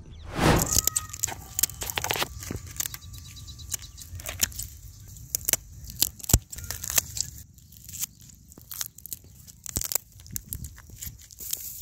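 Scissors snipping and crunching through the shell of a giant river prawn: a run of irregular crisp clicks and snaps. A loud rush of noise comes in the first second.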